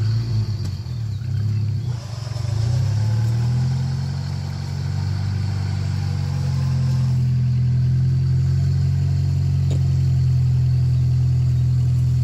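Off-road vehicle's engine running at low revs, its pitch wavering for the first couple of seconds and then holding steady.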